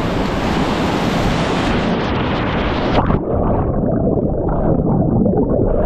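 Heavy whitewater rushing and crashing around a kayak running big river wave trains at high water. About three seconds in, the hiss drops away suddenly and leaves a dull, muffled rush.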